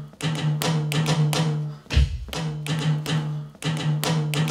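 Electronic drum sounds from a wearable body drum, struck in quick rhythmic runs over a held low synth note. The phrases break off with short gaps about every two seconds.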